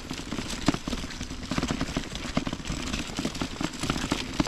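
A three-wheeled dog stroller's wheels rolling over a rough stony track, with footsteps crunching on the gravel: a dense, irregular crackle.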